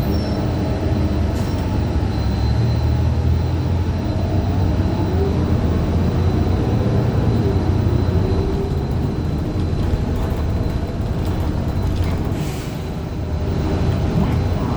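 Interior ride noise of a Gillig Low Floor transit bus with a Cummins Westport ISL G CNG engine and an Allison B400R transmission that the uploader calls messed up. It is a steady low rumble whose pitch rises and falls with the bus's speed, briefly quieter about twelve seconds in.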